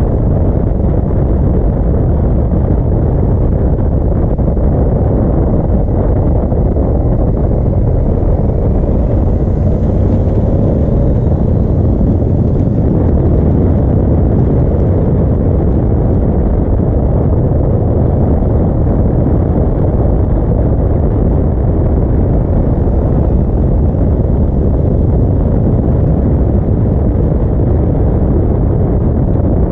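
Yamaha V-Max 1200's V4 engine running at a steady cruise, heard from the rider's seat, mixed with wind rushing over the microphone.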